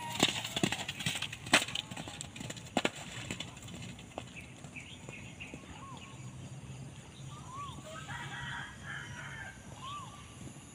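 Hoofbeats of a galloping horse on grass, close and loudest in the first three seconds, then fading as it moves away. A few short bird calls sound in the background from about six seconds on.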